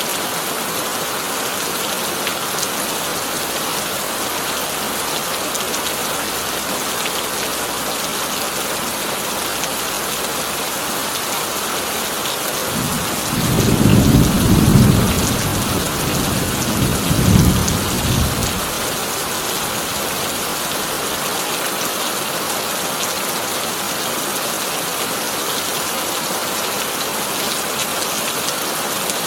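Heavy rain drumming steadily on a tin roof. About halfway through, a deep rumble of thunder rolls in for roughly five seconds, swelling twice before fading.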